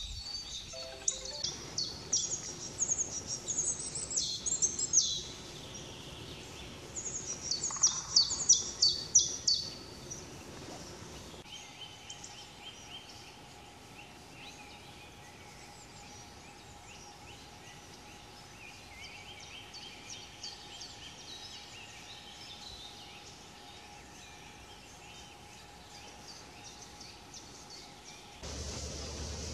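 Wild songbirds singing. Two loud phrases of quick, high-pitched notes come in the first ten seconds, then fainter trilled songs repeat over a faint steady hum.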